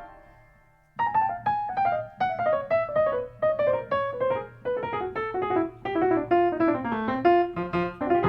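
Piano music: after a held chord dies away into a pause of about a second, a quick melody of single notes starts and steps steadily downward.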